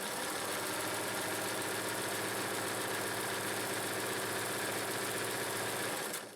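Singer 317K zigzag sewing machine running at a steady speed on its internal belt-driven motor, stitching a zigzag, and stopping near the end.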